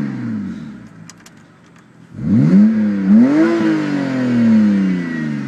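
BMW 128i's inline-six revved through a Berk Technology axle-back race exhaust, heard from inside the cabin. One blip dies away at the start. About two seconds in, the engine is revved twice in quick succession, then falls slowly back toward idle.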